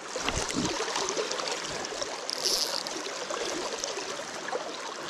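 Fast freestone stream running over a rocky bed, a steady rushing of water, with a brief high hiss about halfway through.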